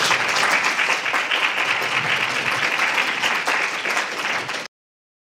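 Audience applauding, many hands clapping at once, cut off suddenly near the end.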